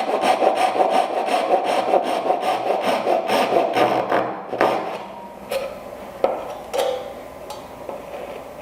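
Hand saw cutting the pins of a dovetail joint in wood, in quick, even back-and-forth strokes. The sawing stops about halfway through, followed by a few light knocks and handling sounds.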